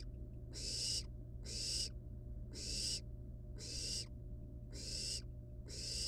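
Barn owl nestling giving its rasping, hiss-like begging call (the 'snore' of barn owl chicks), repeated about once a second, over a steady low hum.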